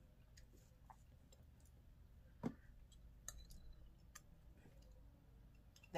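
Near silence with a few faint, scattered clicks, as a wooden spoon taps inside a ceramic pot, and one brief, slightly louder sound about two and a half seconds in.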